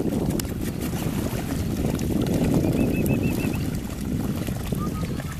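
Golden retriever puppies and their mother wading and splashing lightly in shallow lake water, under a steady low rumble of wind noise on the microphone. A short run of high chirps comes about three seconds in.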